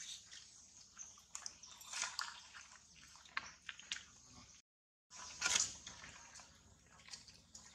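Macaques eating juicy fruit: irregular wet smacking and squishing mixed with small clicks and rustles. The sound cuts out for about half a second near the middle.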